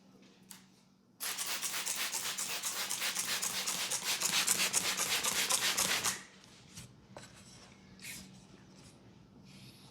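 Hands rubbing fast and hard through the hair on the scalp, a rhythmic scratchy rustle that starts about a second in and stops about six seconds in, followed by a few softer rubs.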